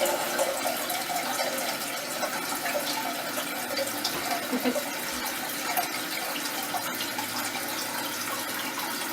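Toilet tank refilling: water running steadily into the open tank through the fill valve.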